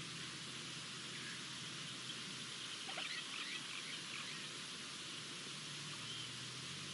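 Steady outdoor hiss, with a brief burst of bird chirps about three seconds in.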